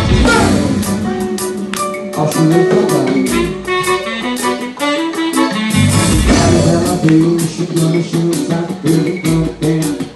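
Live band playing through the stage sound system: a drum kit keeps a steady beat of cymbal and drum hits under sustained keyboard and guitar lines.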